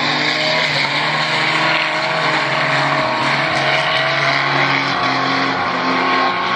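A race car's engine running hard around a dirt oval, its note rising and falling through the turns.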